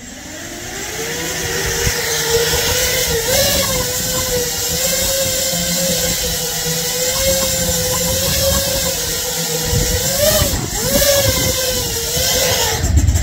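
5-inch FPV quadcopter's four brushless motors and propellers spooling up on lift-off and hovering: a loud buzzing whine that climbs over the first two seconds, then holds steady with small wavers in pitch as the throttle is corrected. It cuts off abruptly at the end as the drone is set down and disarmed.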